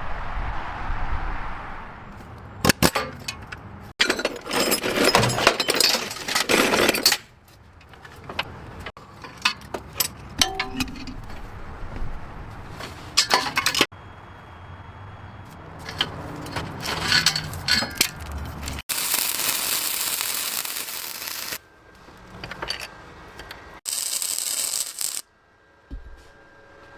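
A run of short, separate snippets of metal clinks, knocks and rattles from hand tools and metal parts, with two stretches of steady rushing noise in the second half.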